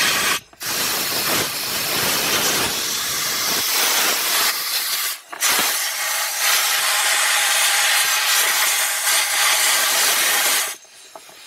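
Compressed-air blow gun hissing in long blasts through the heater duct, with short breaks about half a second and five seconds in, and cutting off near the end: air being forced through to clear built-up condensation and dirt.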